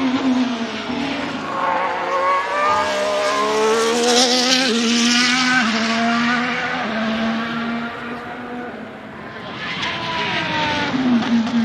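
Ferrari SF-23 Formula 1 car's turbocharged V6 engine running on track. It drops in pitch as the car slows, then pulls hard through several quick upshifts and is loudest a few seconds in. It fades away, then comes back near the end, falling in pitch as the car brakes and shifts down.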